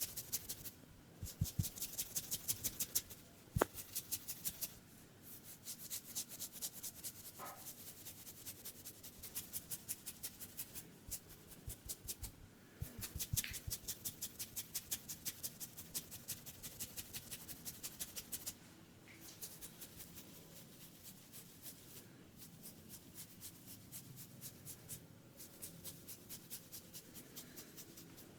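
Rapid, even clicking or tapping from a head massage, several light clicks a second in runs of a few seconds with short breaks, growing fainter in the last third.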